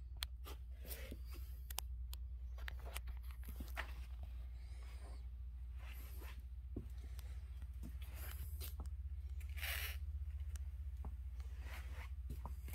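Scattered footsteps and the rustle of clothing and a handheld phone being moved, a string of irregular short clicks and scuffs, over a steady low hum.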